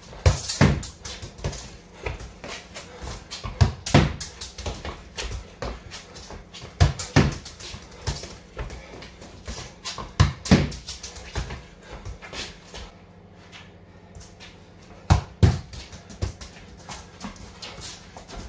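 A football is kicked hard against a garage wall and trapped on the rebound, over and over: sharp thuds of boot on ball and ball on wall, often in quick pairs, with shoes scuffing on the concrete floor. There is a quieter stretch of a second or two about two-thirds of the way through.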